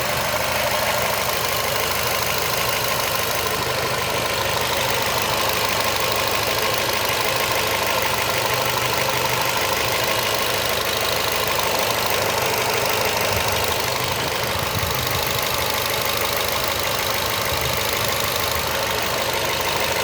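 Renault Fluence car engine idling steadily, with the strange noise its owner is trying to record running through the idle.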